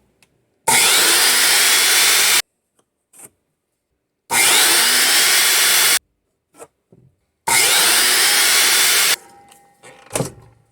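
A power tool working wood in three bursts of under two seconds each, each starting and stopping sharply, followed by a short knock near the end.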